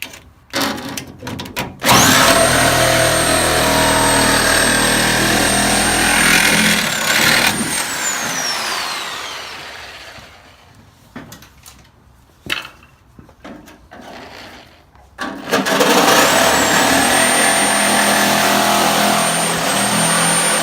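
High-speed cutoff tool run twice for about five seconds each, cutting into car body sheet metal: a high whine that jumps up as it starts and slides down as it winds off, over a rough grinding rasp. Between the two cuts there are a few sharp metal knocks.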